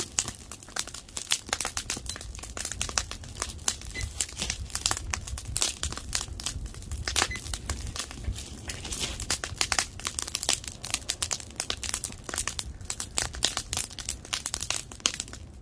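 Wood fire crackling and popping in a steel fire pit: many irregular sharp snaps of burning wood over a steady low rumble.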